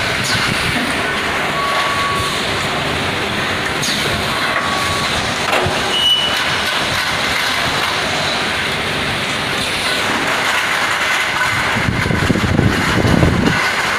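Steady mechanical din of an automated T8 LED tube silicone-dispensing production line, with a few short high beeps and a louder low rumble near the end.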